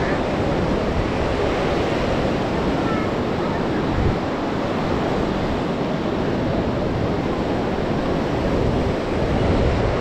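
Sea surf washing onto the beach in a steady wash of noise, with wind buffeting the microphone.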